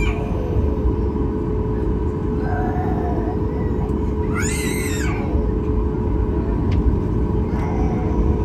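Airliner cabin noise on a Boeing 737 MAX 8: a steady low rumble with a constant hum, with faint passenger voices and one brief high-pitched cry about four and a half seconds in.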